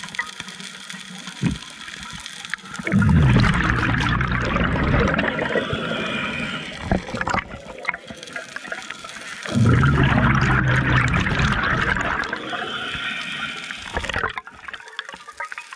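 Scuba diver breathing through a regulator underwater: two long exhalations of rushing, bubbling air, starting about 3 s and about 10 s in and each lasting several seconds, with quieter hissing inhalations between them.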